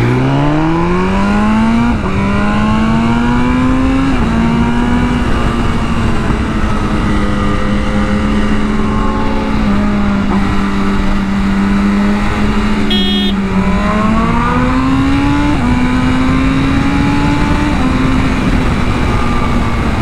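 Sport bike engine accelerating hard through the gears. The note climbs steeply and drops back at upshifts about two and four seconds in, holds a fairly steady note at highway speed, then climbs again for a second pull partway through. Heavy wind noise runs under it.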